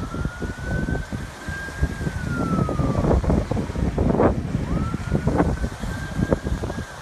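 An emergency vehicle siren wailing slowly: the tone rises, holds, then falls, and begins a second rise about four and a half seconds in. Under it is a heavy low rumble with irregular knocks.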